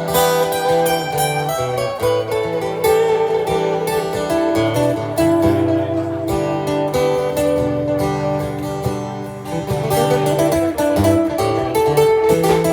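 Acoustic guitar playing an instrumental passage, picked and strummed notes over low bass notes.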